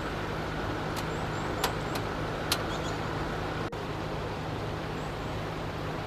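Steady outdoor rushing noise with a low hum underneath. A few sharp clicks come in the first half, along with faint, short, high bird chirps.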